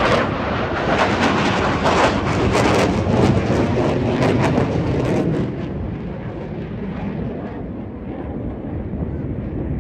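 Aircraft flying a loud low pass over the crowd, a crackling roar that drops after about five and a half seconds to a quieter, lower rumble as it moves away.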